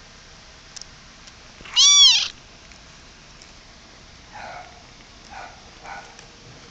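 A young kitten gives one loud, high meow, about half a second long, that rises and then falls in pitch. Three much softer short sounds follow a couple of seconds later.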